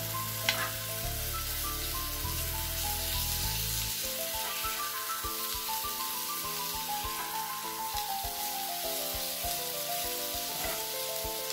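Halved boiled eggs in spice paste sizzling steadily in hot oil in a frying pan, with a few clicks and scrapes of a steel spatula as they are turned over. Background music with held notes plays along.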